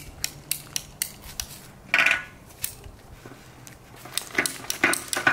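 Hand PVC pipe cutter clicking as it is worked through 3/4-inch PVC pipe: a string of quick sharp clicks, with one louder clack about two seconds in.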